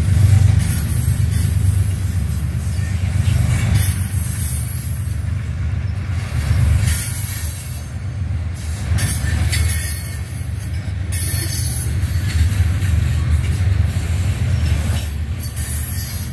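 Freight train covered hopper cars rolling past: a steady low rumble of steel wheels on the rails, with a high hiss that swells and fades several times.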